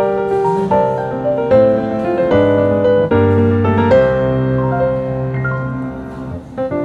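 Background piano music: chords and melody notes struck one after another at a gentle pace.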